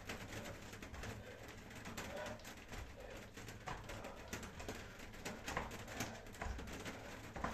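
Bare feet landing on an exercise mat during jumping lunges: a series of dull, irregular thuds about once a second.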